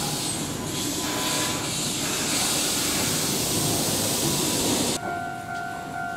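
Keihan electric train coming to a stop at the platform, with a loud hiss that cuts off suddenly about five seconds in. A steady electronic tone follows.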